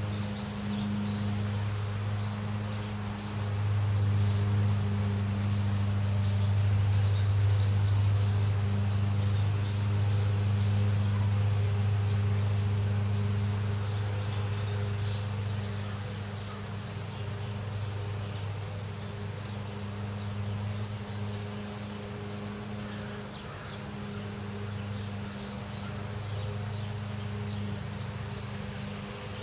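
Low, steady engine hum of neighborhood traffic. It grows louder a few seconds in and eases off after about ten seconds. A faint high steady whine runs above it.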